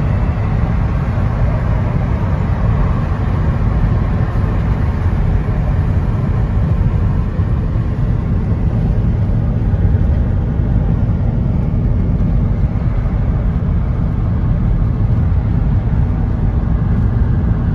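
Steady low rumble of road and tyre noise heard inside a car cruising at motorway speed.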